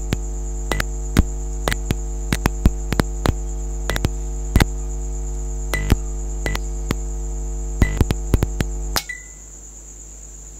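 Magnetic ballast of a 1980s Philips SL Prismatic compact fluorescent lamp humming at mains frequency, with irregular sharp clicks as the lamp keeps trying to strike. The damaged tube won't light: only its cathodes heat up. The hum and clicking stop suddenly about nine seconds in.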